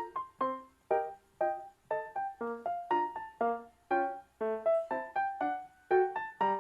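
Background music: a keyboard melody of single, quickly fading notes, about two a second.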